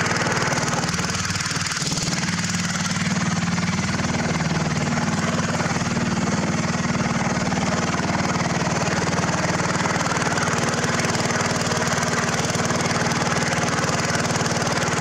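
Poulan riding lawn mower engine running steadily as the mower is driven, a fast, even run of firing pulses.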